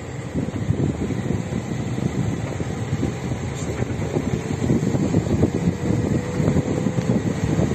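Wind buffeting the microphone: an uneven, gusty low rumble, with a faint steady hum beneath it.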